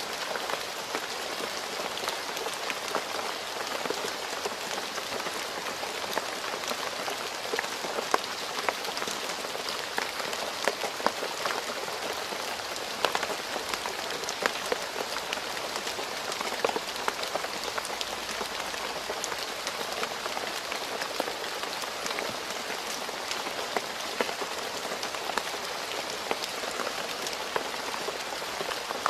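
Steady rain falling on a road surface, a continuous hiss with many distinct drop splashes and ticks scattered through it.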